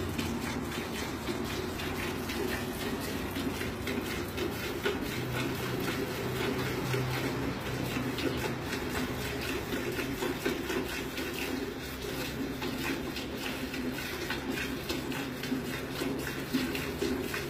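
Hand milking a cow: quick, repeated squirts of milk from the teats streaming into a pail of milk.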